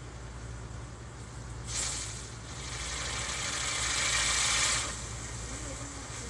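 Ground fountain firework spraying sparks: a loud hiss starts about two seconds in, swells, and cuts off near five seconds. A steady low hum runs underneath.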